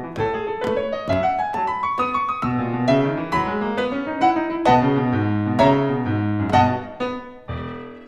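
Piano music: a rising run of single notes, then chords, closing on a final chord that rings out and fades near the end.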